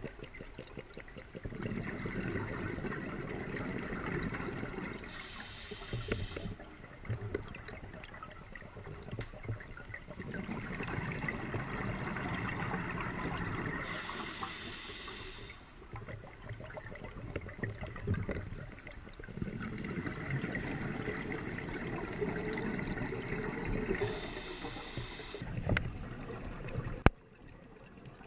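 Scuba diver breathing through a regulator underwater: a short hiss as the demand valve opens on each inhalation, then a few seconds of exhaled bubbles gurgling past. The cycle repeats about every nine seconds, three breaths in all, with a sharp click near the end.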